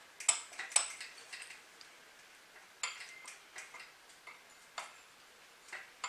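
Light clicks and taps at uneven intervals, the loudest two near the start, as the housing of a Hangkai 3.6 hp outboard motor is wiggled and pulled by hand and catches on the exhaust pipe.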